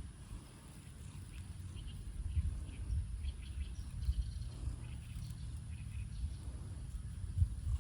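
Faint, short bird chirps over a low, fluctuating rumble, as of wind on the microphone.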